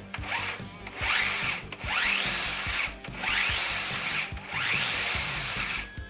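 Roomba's brushed 775 RedLine drive motors and planetary gearboxes spinning up in pulses: a short burst, then four longer ones, each a rising whine that cuts out after about a second. This is the intermittent pulsing that kills the drive to the wheels, an electronic fault.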